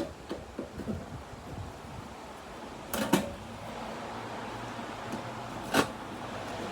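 A few sharp clicks and knocks of metal parts and tools being handled as screws come out of an infrared ceiling heater's housing, over a steady low hum from about halfway through.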